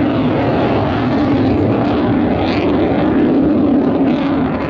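Jet noise from a Panavia Tornado's twin Turbo-Union RB199 turbofans in flight: a loud, steady rumble with a hiss above it.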